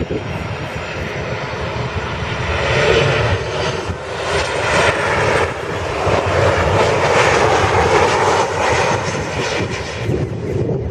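Airliner jet engines running at high power as a plane passes. The sound grows louder about two seconds in and stays loud, with a faint high whine over the noise.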